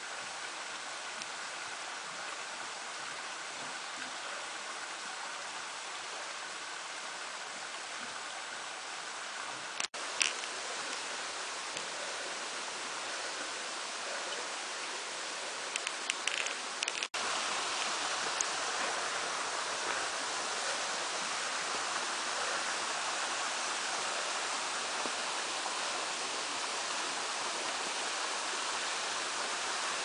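Steady rush of a rocky mountain stream, an even hiss of running water with a few faint clicks; it breaks off briefly twice, about ten and seventeen seconds in, and is a little louder after the second break.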